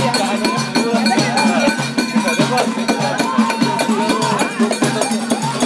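Moroccan folk ensemble playing: frame drums and hand claps keep a steady, fast beat under men singing together and a bowed violin.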